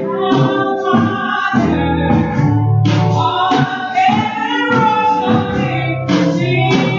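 Live gospel worship song: women singing together into microphones over band accompaniment.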